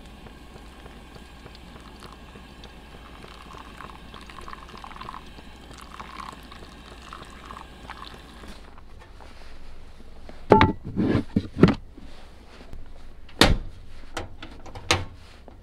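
Hot water poured from a kettle into a paper-filter pour-over cone of coffee grounds, a steady trickle that stops about eight and a half seconds in. Then several sharp knocks and clatters as gear is handled and set down.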